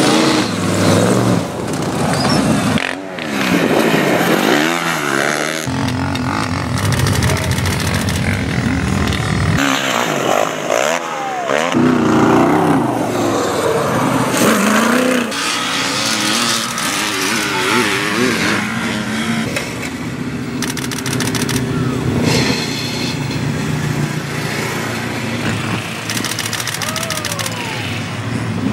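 Sand rail dune buggy engines revving hard as they climb and jump the sand, the engine pitch sweeping up and down again and again, with abrupt changes from one vehicle to the next.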